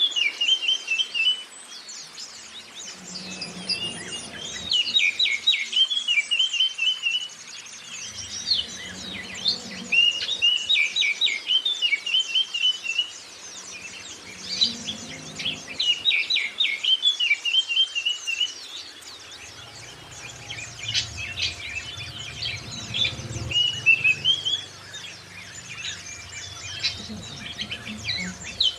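Oriental magpie-robin singing in repeated loud phrases about every three seconds, each a quick run of sweeping notes ending in a warble, with high thin chirps of white-eyes behind it.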